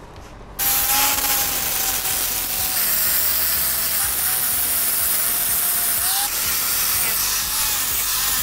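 Electric angle grinder switched on about half a second in, its abrasive disc grinding rust off a chrome-plated steel bumper. It gives a loud steady grinding hiss over a motor whine that sags and recovers as the disc is pressed into the metal.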